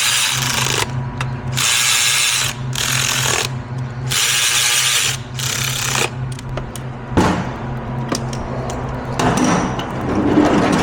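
A ratchet working in three short bursts of about a second each, fastening an ignition coil onto a cylinder of a 2.4-litre four-cylinder engine during a coil swap.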